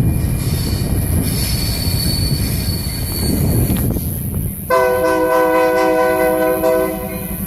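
EMD SD70M locomotive's air horn sounding one long multi-note chord, which starts suddenly about two-thirds of the way in and is held for about two and a half seconds. Before it, the low noise of the moving train carries a thin, high, steady wheel squeal.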